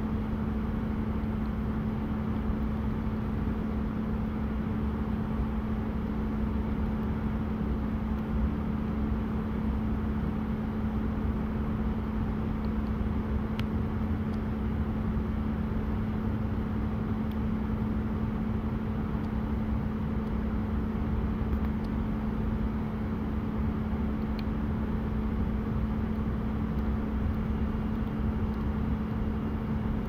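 Steady machinery hum with a constant low tone, unchanging in level, with a couple of faint ticks, one about halfway through and one later.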